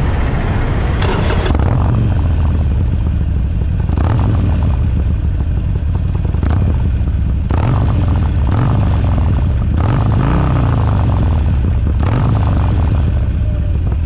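Harley-Davidson Forty-Eight's air-cooled 1200 cc V-twin running through Screaming Eagle slip-on mufflers, idling and revved briefly several times.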